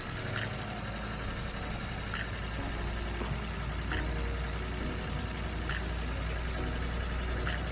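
1992 Toyota 4Runner engine idling steadily, with a short sharp tick about every two seconds.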